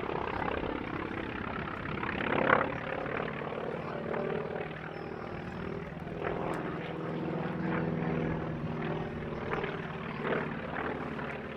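Grumman Wildcat's radial piston engine and propeller droning steadily as it flies a display, with a brief louder swell about two and a half seconds in.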